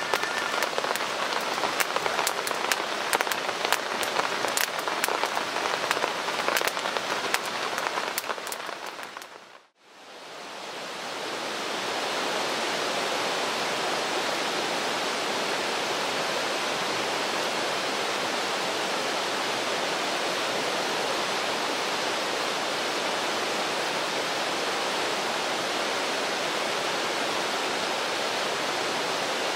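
Rain: a dense hiss peppered with sharp drop taps fades out about ten seconds in. A steady, even hiss of rain then fades back in and holds.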